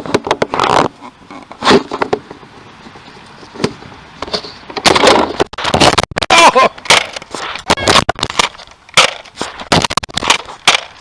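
Nerf foam-dart blasters firing and being worked during play: a string of sharp clacks and bangs. A denser stretch of clatter and scuffling comes about five to seven seconds in.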